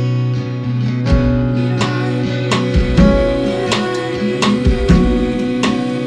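A small band playing live: acoustic guitar strummed in a steady rhythm over held notes, with a deep low thump about every two seconds.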